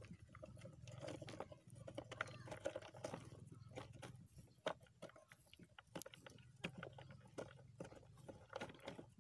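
Faint, scattered crackling and crunching of dry earthen termite-nest walls crumbling under the fingers, over a steady low hum.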